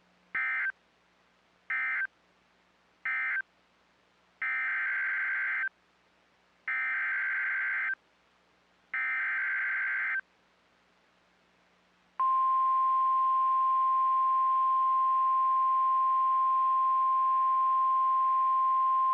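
NOAA Weather Radio Emergency Alert System (EAS) data bursts: three short, buzzy end-of-message bursts closing the flash flood warning, then three longer SAME header bursts announcing the next warning. About twelve seconds in, the loud, steady 1050 Hz warning alarm tone begins.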